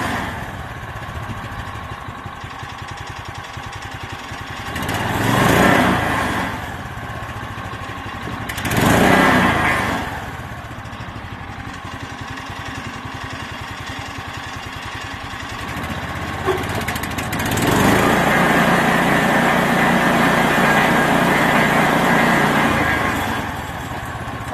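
Brand-new 9 hp Subaru single-cylinder engine on a bandsaw mill running at idle on its first start. It speeds up briefly twice, then runs faster for about five seconds near the end before settling back. It is still cold and needs warming up or a little more choke.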